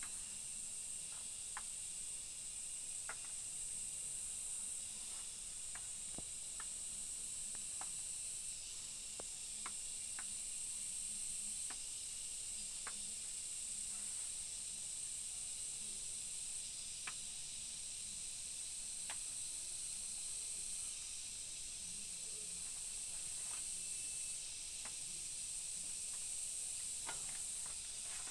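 Steady high-pitched insect chorus, with faint scattered clicks and rustles of wild betel (lá lốt) leaves being snapped off by hand.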